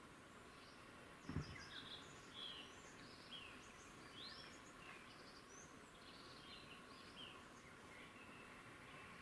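Faint forest birdsong: many small birds giving short chirps and quick whistled notes throughout, with one low thump about a second and a half in.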